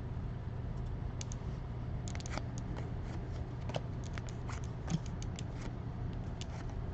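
Scattered light clicks and crinkles of a card hobby box and its packs being opened and handled, over a steady low hum.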